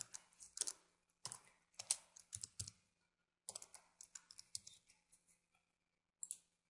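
Faint computer keyboard typing: quick runs of keystrokes in three short bursts with brief pauses between.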